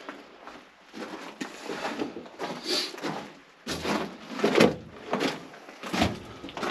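Footsteps crunching and scuffing on loose rock in a mine tunnel, irregular, with a few heavier thumps about four and six seconds in.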